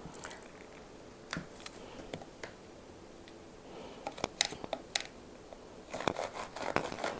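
Kitchen knife being drawn through grapes held between two plastic lids. Scattered clicks and taps of blade on plastic come first, then, about six seconds in, a quick run of rasping back-and-forth sawing strokes.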